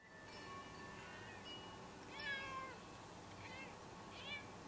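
Domestic cat meowing three times in short calls, the first, about two seconds in, the loudest and falling in pitch.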